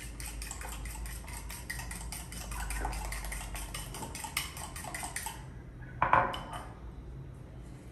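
Fork beating eggs in a bowl: a fast, even clicking of the tines against the bowl that stops about five seconds in. A single louder knock follows about a second later.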